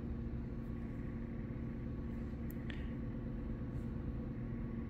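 A steady low mechanical hum, like an engine running at idle, with one faint tick a little past halfway.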